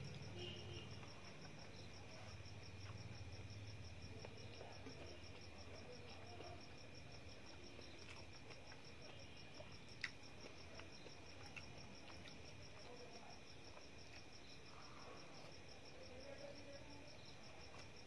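Faint, steady chirping of a cricket, an even pulsing trill, with soft eating sounds of rice being handled and chewed, and one sharp click about ten seconds in.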